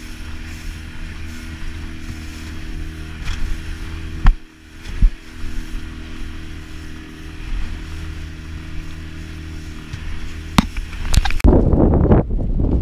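Outboard motor pushing an inflatable boat along at a steady speed, a constant drone broken by a few sharp knocks. Near the end it gives way to loud wind buffeting the microphone.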